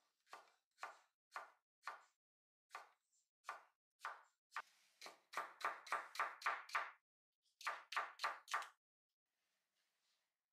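Kitchen knife chopping vegetables into strips on a wooden cutting board. It starts as single knocks about half a second apart, speeds up to about four strokes a second in the middle, then gives three more strokes and stops a couple of seconds before the end.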